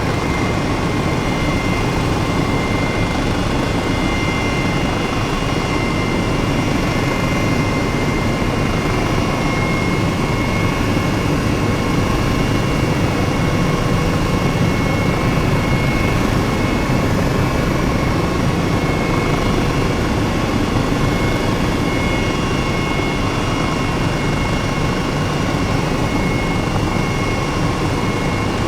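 Steady, unchanging aircraft engine drone with a few faint high steady whines running through it.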